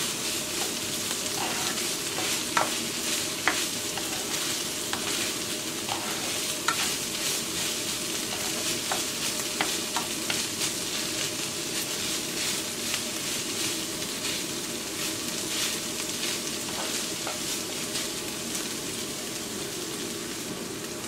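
Ground meat sizzling as it browns in a non-stick frying pan, with its liquid cooked off. A plastic spatula stirs and scrapes through it, making scattered clicks over the steady frying hiss.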